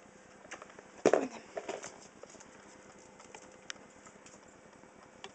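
A ferret scrabbling about its cage, its claws making scattered light clicks and taps. About a second in there is one brief, loud vocal sound with a falling pitch.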